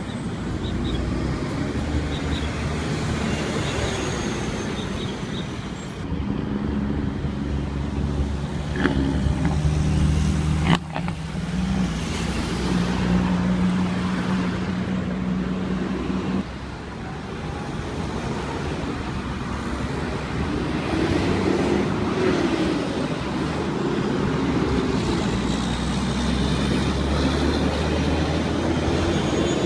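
Road traffic passing close by, cars and trucks running, with a steady low engine drone from a nearby vehicle through the middle stretch and a single sharp click about eleven seconds in.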